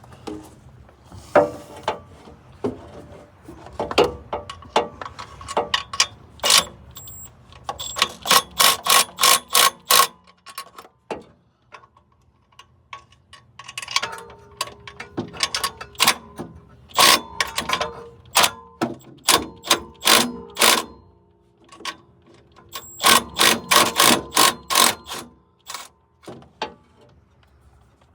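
Hand ratchet clicking in quick runs of strokes, about five clicks a second, with pauses between the runs.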